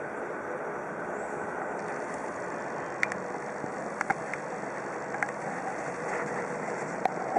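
Steady city street noise with traffic running, and a few short sharp clicks about three, four, five and seven seconds in.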